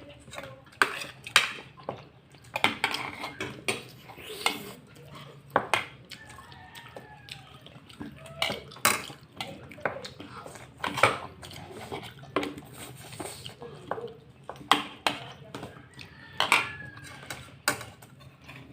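Spoon and fork clinking and scraping against a plate, with sharp, irregular clicks about once or twice a second while food is picked up for eating.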